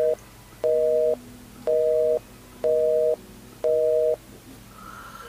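Telephone busy tone after the call is cut off: a two-note beep, about half a second on and half a second off, repeating five times.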